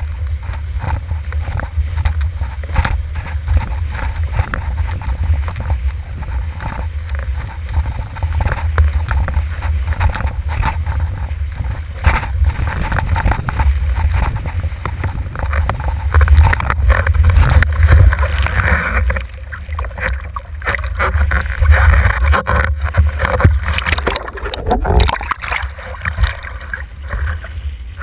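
Windsurf board moving fast over choppy water: heavy wind rumble on the boom-mounted microphone, with water rushing and the board knocking irregularly against the chop.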